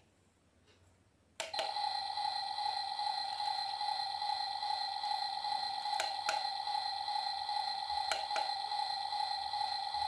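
Steady electronic tone from the toy remote-control dump truck's sound effects. It is near silent at first and switches on with a click about a second and a half in. More sharp clicks of the remote's buttons come around six and eight seconds in.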